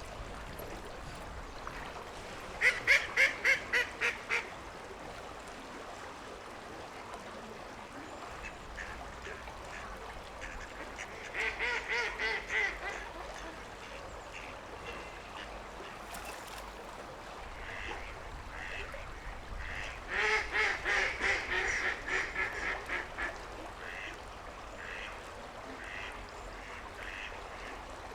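Ducks cackling: three bouts of rapid quacks, a loud one about three seconds in, a shorter one near twelve seconds and the longest around twenty to twenty-three seconds, with softer scattered quacks in between, over steady background noise.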